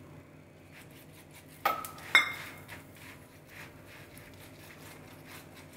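A small steel bowl clinking twice, about half a second apart, a little under two seconds in, with faint light dabbing of a silicone brush spreading ghee over a paratha on a hot tawa.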